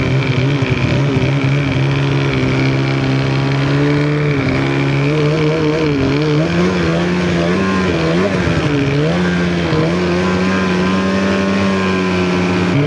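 A 2023 Polaris RMK Khaos Boost snowmobile's turbocharged two-stroke engine running under steady throttle while riding. Its pitch wavers gently, with a few small dips and rises partway through.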